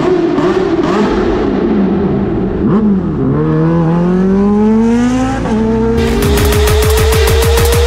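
Kawasaki Ninja H2 sportbike engine echoing in an underpass, its pitch rising and falling as the throttle is blipped. Then, out in the open, it accelerates hard, the pitch climbing steadily, with a gear change about five seconds in. About six seconds in, electronic intro music with a rising synth tone cuts in.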